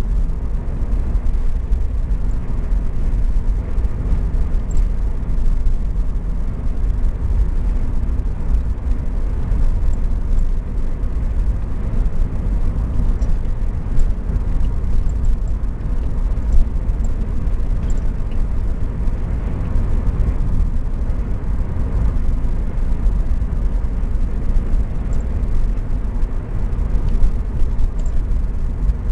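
Classic car driving at a steady speed, heard from inside the cabin: a constant low rumble of engine, tyres and road.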